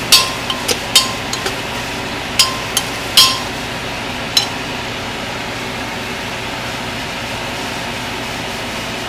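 A metal spoon knocks against the side of a metal cooking pot while stirring masala: about ten sharp clinks, each with a brief ring, over the first four and a half seconds. After that only a steady hiss remains.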